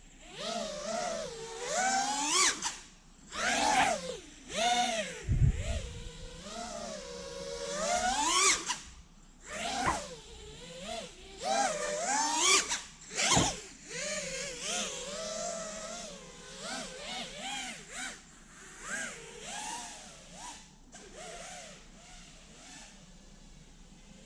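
5-inch FPV quadcopter's brushless motors and propellers whining, the pitch sweeping sharply up and down with each throttle punch. Two heavy thumps, about five seconds in and again about thirteen seconds in. The whine turns steadier and quieter near the end.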